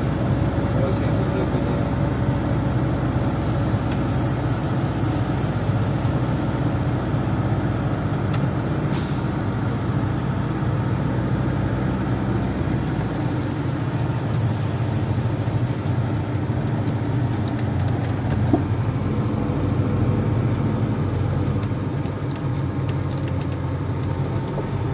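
Engine and running gear of a Zyryanin tracked all-terrain vehicle, heard from inside the cab, running steadily as it drives. Its deepest rumble eases a little about halfway through.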